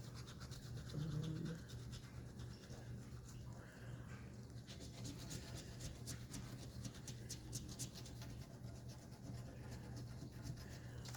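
Scratching the coating off a lottery scratch-off ticket: many quick, short scraping strokes in irregular runs, over a steady low hum.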